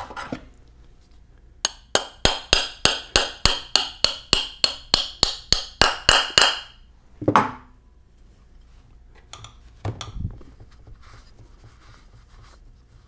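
Ball-peen hammer tapping a new pin into the bore of a Muncie 4-speed aluminium side cover: a quick, even run of about eighteen light metallic taps, roughly four a second, each with a short ring. A single heavier knock follows, then faint handling.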